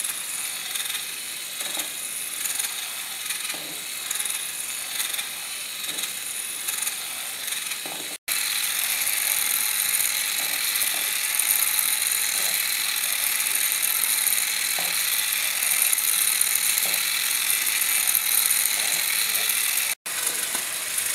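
Geared electric motors of a two-wheeled self-balancing Lego robot whirring steadily, with plastic gears rattling and ticking as it drives and balances. The sound drops out briefly twice.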